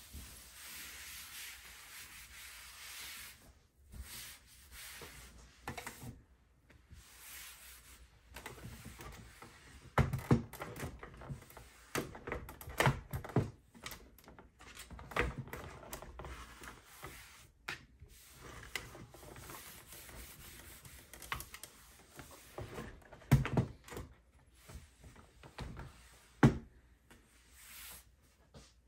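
A cloth rubbing across a hard desktop as it is wiped, followed by scattered knocks and taps of things being handled on the desk, with two louder thumps near the end.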